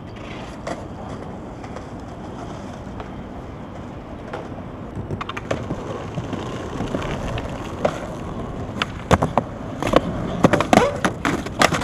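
Skateboard wheels rolling over concrete paving, growing louder as the board comes closer. In the last few seconds come several sharp clacks of the board's deck and tail striking the ground.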